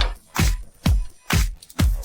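Background electronic dance music with a steady kick-drum beat a little over twice a second.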